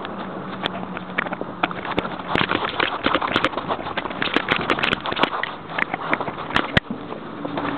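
Rubbing and clicking from a camera worn by a Jack Russell terrier as the dog moves through snow: a dense, uneven crackle of knocks, several a second.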